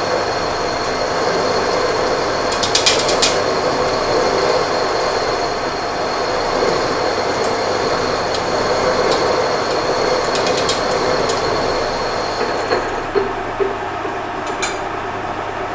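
Machine spindle running with a half-inch drill bit cutting into metal: a steady run with a thin high whine and short bursts of clicking, the whine stopping about thirteen seconds in.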